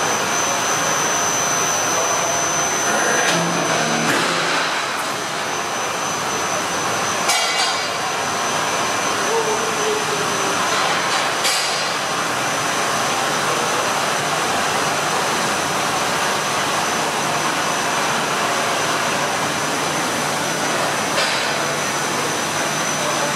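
Steady whirring machinery noise in a workshop, with a thin high whine running through it and a few sharp knocks, about seven and eleven seconds in and again near the end.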